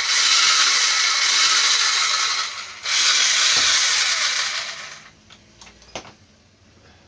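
Moulinex electric grinder running with a high whir and a rubbing noise, which the repairman calls strange, like something rubbing against something. It cuts out briefly just before 3 s, starts again, then runs down and stops about 5 s in, followed by a few faint clicks.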